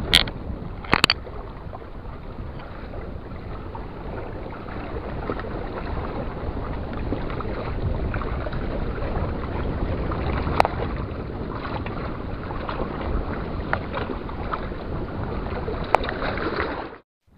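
Steady wind on the microphone over sea water lapping, with a few sharp clicks. The first two come near the start, as a spinning reel is handled.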